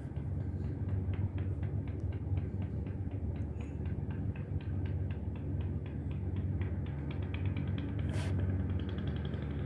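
A boat's engine running steadily with a low hum, overlaid by a rapid, regular ticking of about four or five strokes a second. A brief hiss about eight seconds in.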